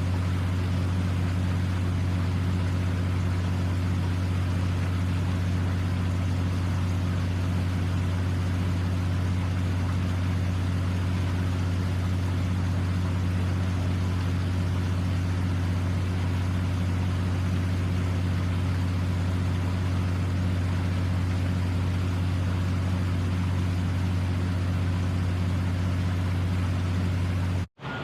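A steady, unchanging low machine drone, like an engine or motor running at constant speed, with a hiss over it; it cuts off suddenly just before the end.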